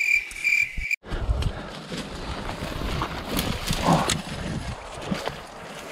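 A cricket chirping in a steady pulsing trill for about a second, cut off suddenly. Then rustling and scattered footsteps of people walking on the forest floor, with low wind rumble on the microphone.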